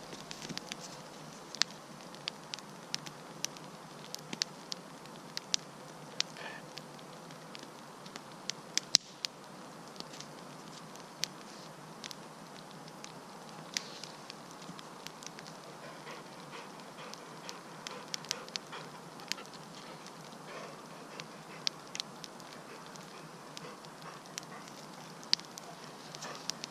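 Wood campfire crackling, with irregular sharp pops and snaps over a steady hiss of burning.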